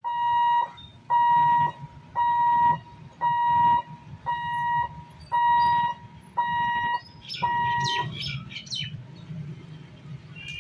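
Level-crossing barrier warning buzzer beeping, eight times at about one beep a second as the boom barriers lift, then stopping about eight seconds in. Motorcycle engines run low underneath, and a brief flurry of short high chirps comes near the end of the beeping.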